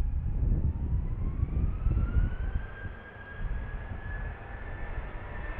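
Boeing 737-800's CFM56 turbofan engines spooling up: a whine rises in pitch over about two seconds and then holds steady, with a low rumble underneath. This is typical of thrust being set for the takeoff roll.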